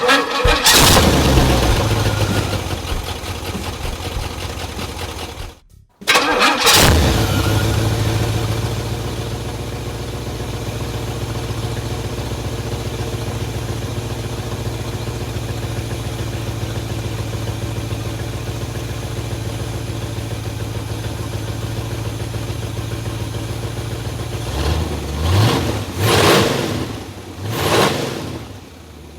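Engine running on a freshly rebuilt Quadrajet four-barrel carburetor: it starts and revs, breaks off suddenly about six seconds in, then starts again and settles into a steady idle. A few quick throttle blips come near the end.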